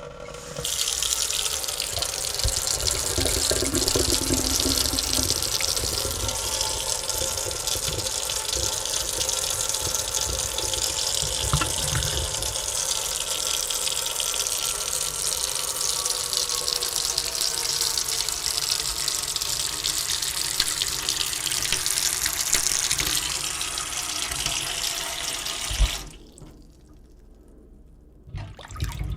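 Sink faucet running, water pouring steadily into the basin, then turned off with a knock about 26 seconds in. The tap starts running again right at the end.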